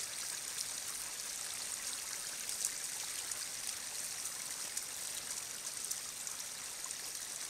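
Steady hiss of running water, like a stream, with a few faint ticks.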